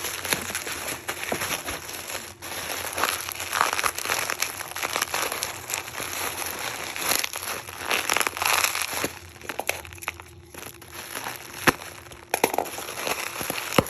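Packaging crinkling and rustling as kit parts are unwrapped by hand, with scattered clicks and a sharp click about twelve seconds in.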